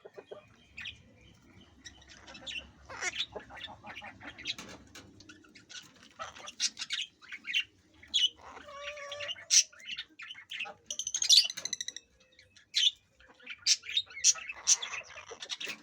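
Parrots squawking and chirping in many short, sharp calls, with the loudest harsh squawk about eleven seconds in.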